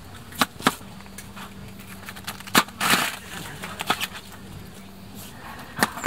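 Kitchen knife cutting vegetables on a plastic cutting board: several sharp, irregular knocks as the blade strikes the board, with a brief rustle about three seconds in.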